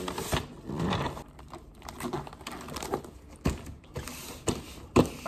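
Shiny gift-wrapping paper crinkling and rustling as it is folded around a boxed present, with several sharp clicks and taps, the loudest about five seconds in.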